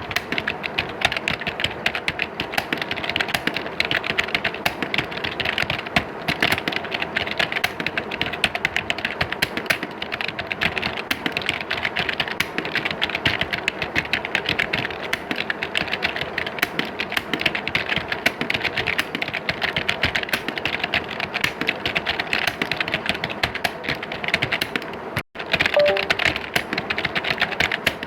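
Many computer keyboards being typed on at once, as in an exam hall: a dense, continuous clatter of key clicks. It drops out for a split second about 25 seconds in.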